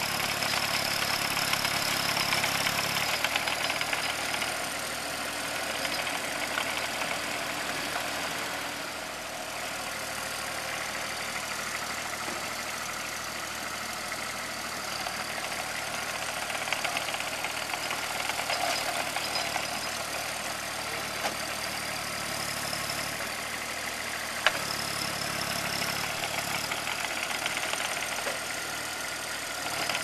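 The Kubota diesel engine of a Ditch Witch SK650 mini skid steer runs steadily while the machine is worked. Its note drops about three seconds in and picks back up near the end, with a high whine over it at those times.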